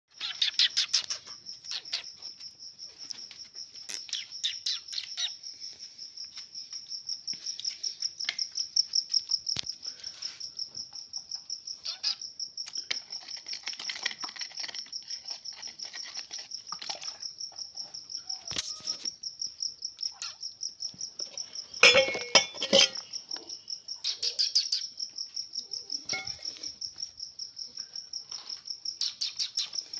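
Cricket chirping in a steady, rapid high-pitched pulsed trill. About two-thirds of the way through there are two short, louder sounds with a pitch to them.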